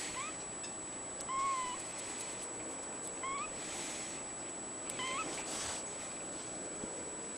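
Ragdoll kitten mewing: four short, high mews a second or two apart, the second one a little longer than the others.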